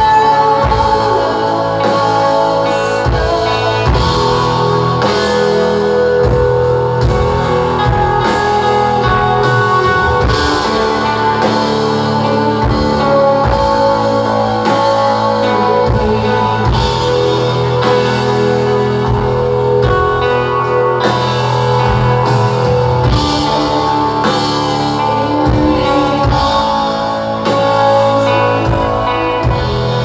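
Live shoegaze rock band playing: layered electric guitars hold long tones over drums, with some singing.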